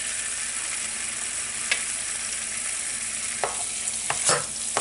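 Butter melting in a hot pan, sizzling with a steady hiss, just after the burner is turned off. A few light clicks come through, one about a third of the way in and several near the end.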